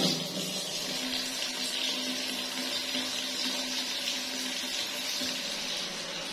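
Tap water pouring in a steady stream into a plastic baby bathtub, filling it, with a faint low hum underneath.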